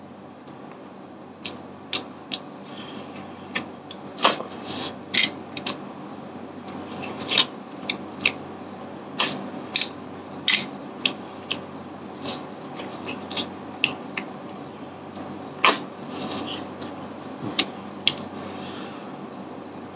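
Cooked snail shells clicking and clinking against each other and the plate as fingers pick through a snail curry: sharp, irregular clicks, about one or two a second, over a low steady hum.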